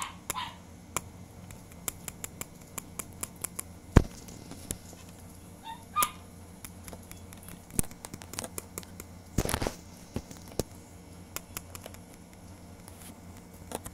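Scattered clicks, taps and knocks of toys being handled against a small toy house, the loudest knock about four seconds in and a longer scraping burst near ten seconds. Two short squeaks, one near the start and one about six seconds in.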